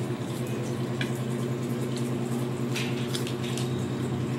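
A steady low electrical hum, with a few short clicks and taps of cutlery and eating at the table.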